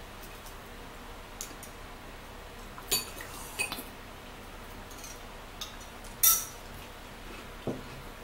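Metal spoon clinking against a ceramic mug of tea: several separate clinks, the loudest about six seconds in with a short ring. A duller knock follows near the end.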